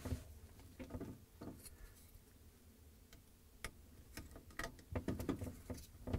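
Light plastic clicks and taps as a refrigerator light-bulb socket is handled and plugged onto its wire-harness connector by hand. The clicks come scattered and grow more frequent in the second half.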